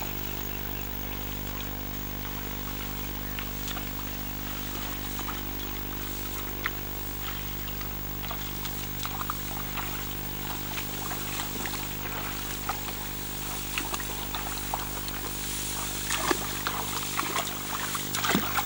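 An engine runs steadily with a low, even drone. Scattered sharp clicks and knocks over it grow more frequent near the end.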